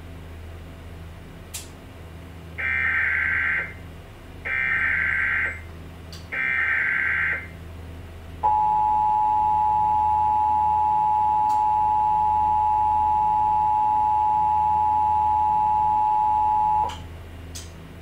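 Emergency Alert System SAME header: three data bursts of about a second each, then the two-tone attention signal held steady for about eight seconds, cutting off sharply near the end. This opens a Required Monthly Test.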